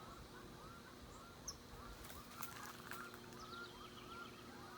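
Faint bird calls: a small bird repeating short rising-and-falling chirps, about three a second, with a few soft clicks.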